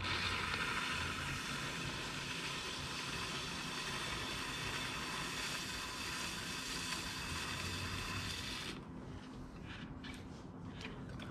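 Flat rib dragging against the wet clay wall of a plate on a spinning pottery wheel, straightening the wall: a steady hiss that stops about nine seconds in. The wheel's motor hums low underneath.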